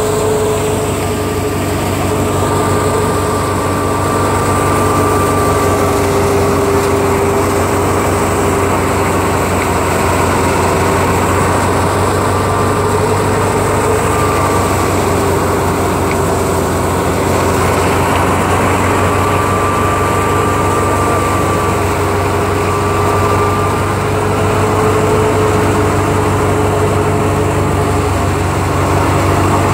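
Wheat thresher running steadily with its drive engine: a loud, continuous mechanical drone with a steady hum and a higher whine that fades in and out.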